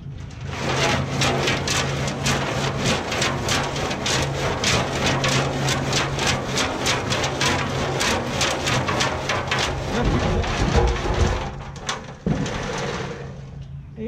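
A handful of angular stones and acetone rattling and sloshing inside a rusty steel gas tank as it is shaken back and forth by hand to scour out the rust. The rattle is a fast, even run of sharp clacks, several a second, and it stops about a second before the end.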